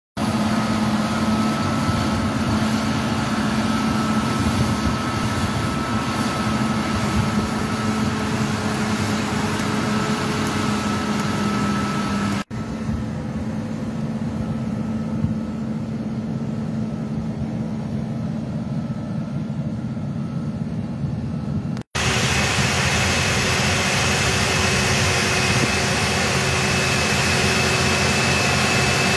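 Diesel engines of large Massey Ferguson tractors running steadily under load as they pull seed drills across a field: a steady drone with a constant high whine over it. The sound breaks off sharply twice as one clip gives way to the next.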